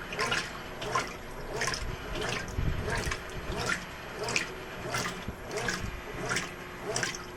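Brastemp 12 kg washing machine agitating a load of towels in medium-level water on normal agitation: rhythmic sloshing and splashing, about three strokes every two seconds, over a low motor hum.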